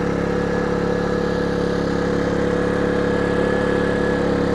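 Erayak 4500PD inverter generator's small engine running steadily on propane just after starting, a constant even hum.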